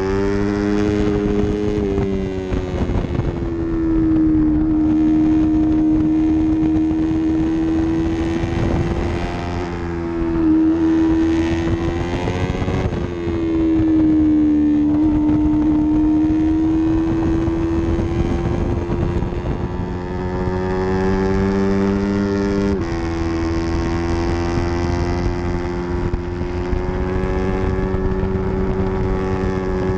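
Yamaha R3's parallel-twin engine racing at high revs, heard right behind the bike; the pitch falls and climbs again several times as it goes through corners, with an abrupt gear change about three-quarters of the way through.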